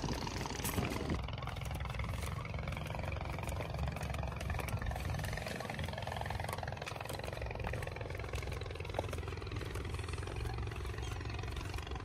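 Wind buffeting the microphone: a steady low rumble with gusty rustle on top.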